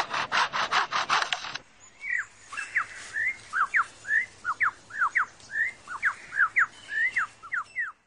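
Superb lyrebird mimicking foresters' chainsaws as rhythmic rasping strokes, about five a second, which stop about one and a half seconds in. It then gives a quick run of short whistled notes that slide up and down.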